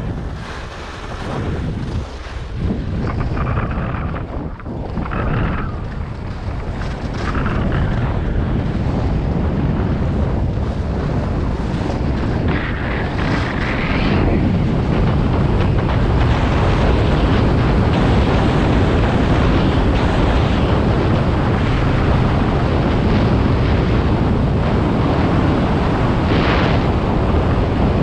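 Wind rushing over a GoPro's microphone as a skier runs straight down a groomed piste at 20–30 mph, mixed with the hiss and scrape of skis on the snow. The rush grows louder as the speed builds, steadying in the second half.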